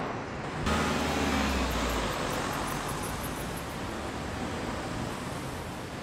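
Street traffic noise. A vehicle's low rumble is strongest for about the first two seconds and then settles into a steady hum of road noise.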